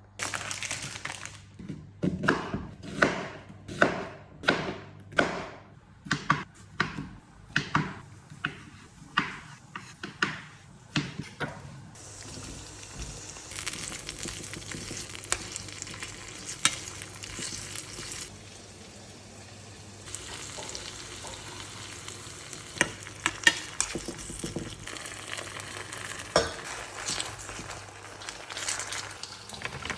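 A run of regular knocks, about two a second, for the first ten seconds or so. Then food sizzling steadily in a frying pan, with occasional sharp clicks and scrapes of a utensil against the pan.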